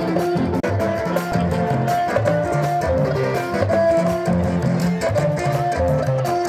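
Music: a plucked-string melody of held notes over a moving bass line, with a steady beat.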